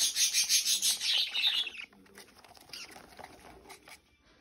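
Budgerigar chicks giving a rapid, raspy, pulsing chatter, about seven or eight pulses a second, which stops about two seconds in; the rest is quiet with a few faint rustles.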